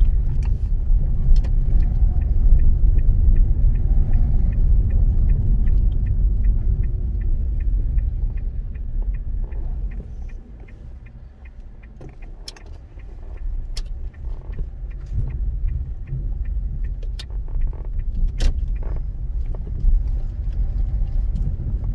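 Inside a car moving slowly through town: steady low engine and tyre rumble that drops away about halfway through as the car slows, then builds again as it pulls on. A light, evenly spaced ticking runs through the first half, the turn indicator signalling for a turn.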